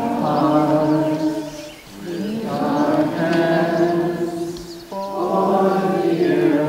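A crowd of many voices singing a slow song together in unison, in long sustained phrases with short breaks about two and five seconds in.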